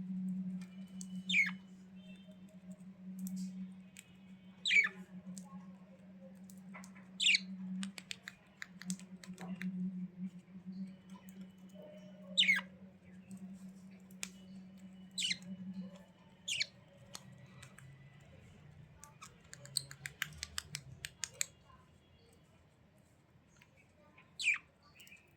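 Budgerigars squawking: sharp calls that fall steeply in pitch, one every few seconds, over soft warbling chatter. A steady low hum stops about two-thirds of the way through, and a quick run of clicks follows near the end.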